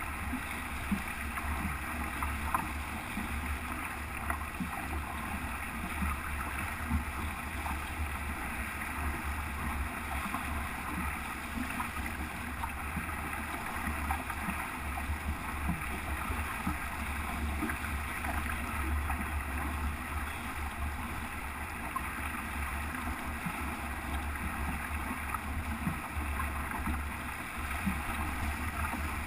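Steady rush of water along the hull of a sailboat heeling close-hauled under sail, with wind on the microphone and a few small ticks from the rigging or fittings.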